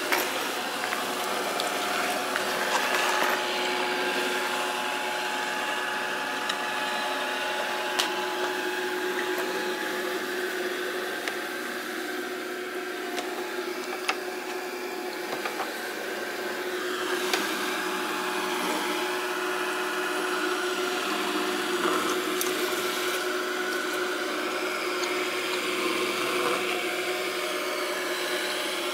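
Samsung SR8751 robot vacuum cleaner running: a steady motor-and-brush hum with a couple of held tones, broken by a few short sharp clicks.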